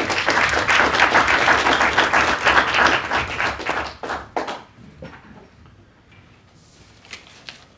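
Audience applauding, dense clapping that dies away after about four seconds.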